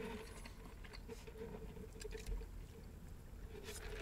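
Faint sips and swallows of a fountain drink through a straw, with a few small clicks.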